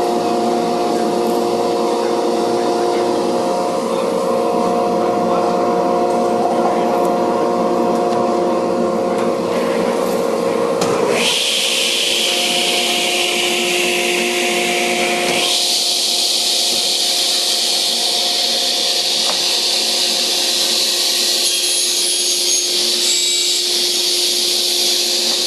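Holytek D405M Plus sliding panel saw running with a steady multi-tone machine hum. About eleven seconds in the sound changes abruptly: the low hum drops away and a steady hiss comes up. It shifts again to a higher hiss a few seconds later.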